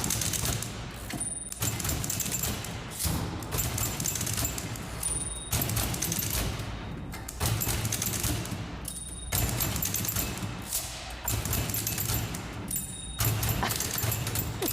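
Manual typewriters played as percussion: fast rhythmic key clatter over a low thudding beat. A typewriter bell dings about every four seconds, each ding followed by a brief pause in the clatter.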